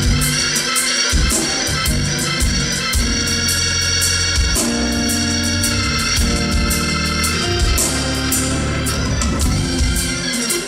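Live band playing: organ chords held over bass guitar and a steady drum beat with cymbals.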